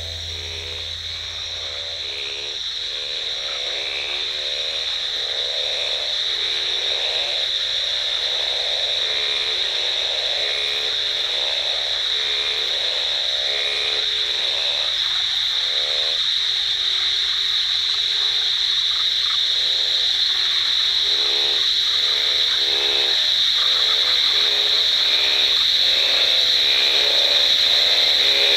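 A dense chorus of tropical rainforest frogs calling at night. Many short, low croaking calls overlap and repeat over a steady high-pitched trilling drone, and the whole chorus grows gradually louder.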